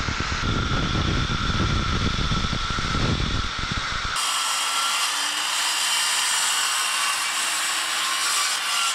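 Large Bosch circular saw ripping lengthwise through a thick wooden keel timber, a steady whine over a rough rumble. About four seconds in, the sound cuts to a second circular saw cutting along the top of the timber, thinner and higher in pitch.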